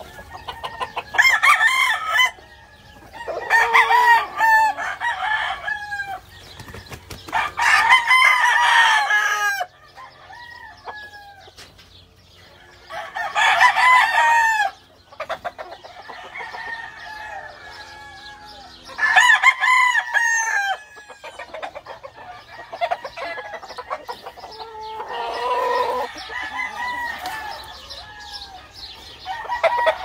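Several caged gamefowl roosters crowing, one loud crow every few seconds, about six in all, with fainter calls from other birds between them.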